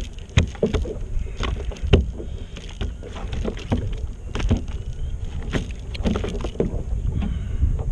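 Steady wind rumble on the microphone with irregular clicks and knocks as a hooked trout and its lure are handled and unhooked with pliers on a plastic kayak.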